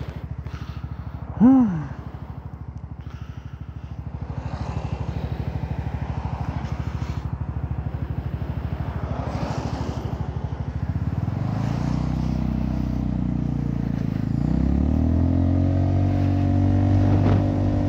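Honda Forza maxi-scooter's single-cylinder engine idling with a steady pulse. About eleven seconds in it revs up and pulls away, its pitch climbing in two steps and then holding steady as it rides. A short, loud pitched blip sounds about a second and a half in.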